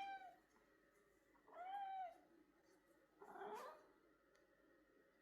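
Tabby cat meowing: the end of one meow right at the start, then two short meows about a second and a half apart, the last one less clear in pitch.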